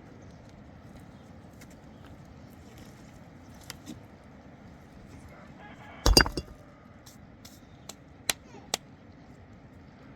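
A few sharp clinks and knocks of hard objects striking, the loudest a quick cluster about six seconds in and two single hits about two seconds later, over a steady low background.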